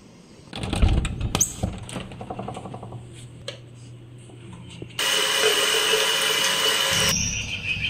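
Handling knocks and clicks as a door knob is turned and a door opened, the loudest a thump about a second in. About five seconds in, a tap runs water into cupped hands over a sink for about two seconds, then stops.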